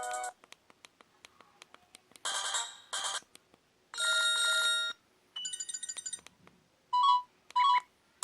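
ZTE F866 mobile phone's speaker playing its preloaded ringtones and alert tones one after another: a melody cuts off at the start, then several short electronic chimes and jingles follow a second or two apart, with faint clicks in the gaps between them.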